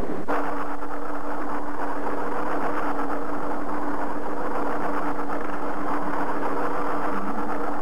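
Film sound effect: a steady, electronic-sounding hum with a dense crackling fizz over it. It starts suddenly a moment in and runs on at an even level.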